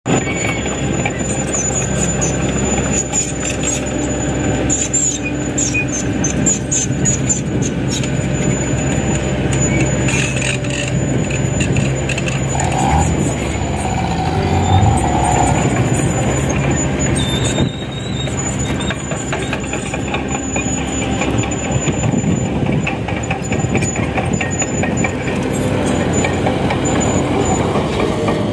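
Mitsubishi Canter dump truck's diesel engine running steadily as the truck drives over a rough dirt track under a full load of soil. A short squeal rises above it about halfway through.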